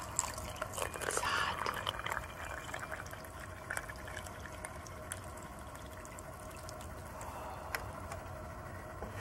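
Hot water being poured into a drinking glass over a tea bag, filling it. The pouring is loudest in the first couple of seconds, then goes on more quietly, with a few small clicks.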